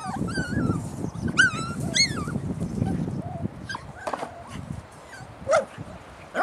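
Puppies whining and yipping: high whines that rise and fall in the first couple of seconds, then two short sharp yips near the end.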